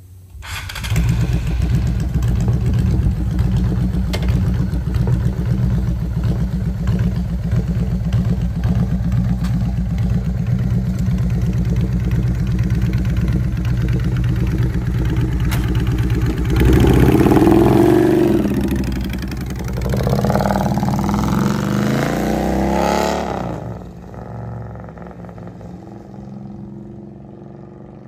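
Honda Shadow VLX600 bobber's 583 cc V-twin starts up about a second in and idles with a steady pulsing beat. It then revs twice as the bike pulls away and fades as it rides off down the street.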